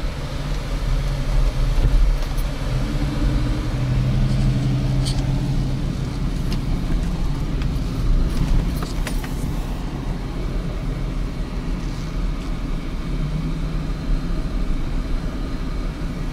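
Jeep's engine and tyre noise heard from inside the cabin while driving at low speed: a steady low hum with a few faint clicks.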